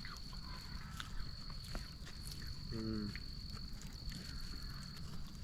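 Steady high-pitched insect trill with no breaks, over a low outdoor rumble. A short hum of a voice comes about three seconds in.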